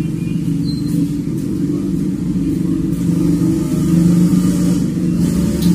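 A steady, loud, low mechanical drone like an engine running, with a few faint clicks.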